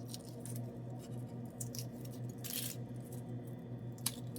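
Hard-boiled eggshell being peeled off by hand: faint crackles and small clicks, with a louder crackling rustle about halfway, over a steady low hum.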